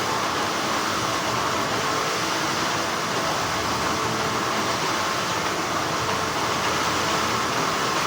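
Textile factory machinery running with a continuous, even hum.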